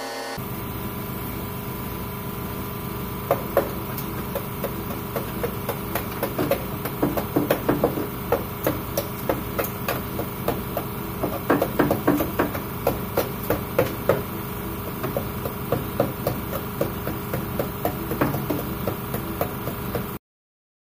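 Handheld power tool hammering at the rusted sheet metal of a car's rocker panel: a steady running hum with rapid, irregular sharp metal clacks. It cuts off suddenly near the end.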